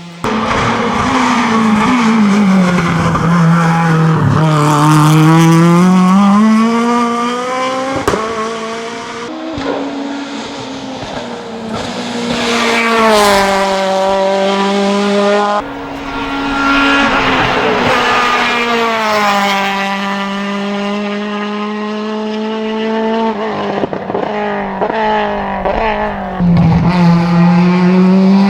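Renault Clio Proto race car engine at hard throttle, its pitch climbing with the revs and dropping back at each gear change, over and over. The sound changes abruptly several times where shots are cut together.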